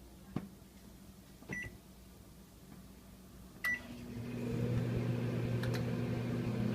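Microwave oven being started: a click, two short keypad beeps, then the oven starting up about four seconds in and running with a steady hum.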